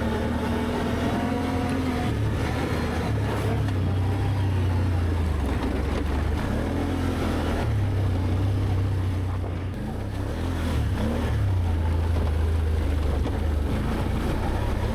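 Can-Am ATV engine running under way on the trail, its note rising and falling with the throttle, easing off briefly about ten seconds in.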